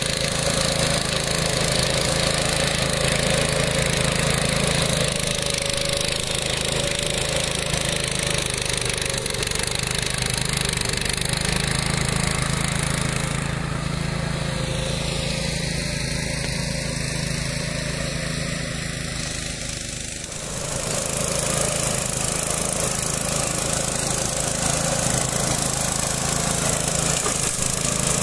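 The Loncin 352 cc four-stroke single-cylinder engine of a walk-behind power unit runs steadily, driving a twin-rotor mulcher through grass. About halfway through, the sound goes duller and slightly quieter for several seconds, then comes back to full.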